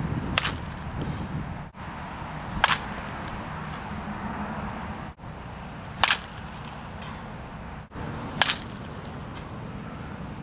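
Metal baseball bat hitting a ball four times, each a sharp ping, two to three and a half seconds apart.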